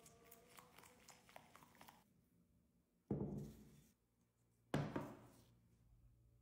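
A wire whisk clicks faintly and quickly against a ceramic bowl as batter is beaten. Then come two heavy thunks about a second and a half apart, as a wooden serving board and a bowl are set down on a table.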